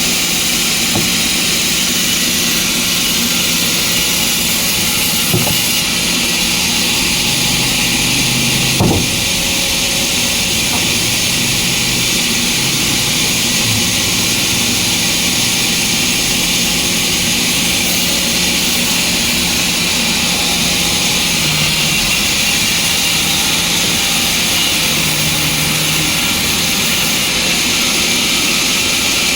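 Sawmill machinery running steadily: a loud, continuous hissing machine noise over a faint low motor hum, with a single brief knock about nine seconds in.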